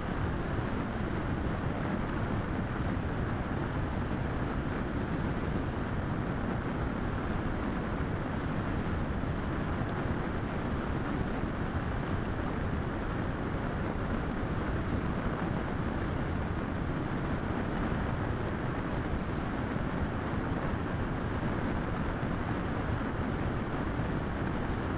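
Steady rush of wind and airflow buffeting the microphone of a camera mounted on a Bixler 3 foam RC plane in flight, with no clear motor whine. It is unbroken, heaviest in the low range, and even in level throughout.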